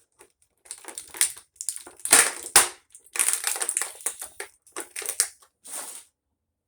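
Stiff plastic packaging crackling and crinkling in a run of bursts as it is handled, loudest about two seconds in.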